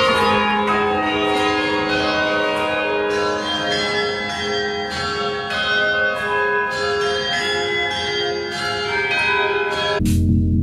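The French Cathedral's tower bells ringing very loudly at close range. Several bells of different pitch strike one after another, their tones overlapping and hanging on. The ringing gives way to music near the end.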